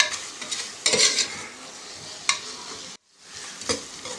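A metal spoon scrapes and knocks against the pressure cooker in uneven strokes, stirring onions, green chillies and ginger-garlic paste as they sizzle in hot coconut oil. The sound cuts out briefly about three seconds in.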